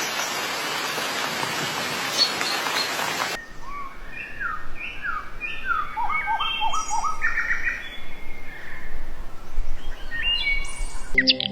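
Songbirds calling: for the first three seconds or so faint calls over a loud steady rushing noise, then, after a sudden change, clear series of short downward-sliding notes at several pitches.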